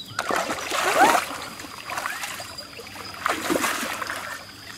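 Water splashing and sloshing as people wade and move their hands through a shallow stream, in two louder bouts, one in the first second and another a little past three seconds in.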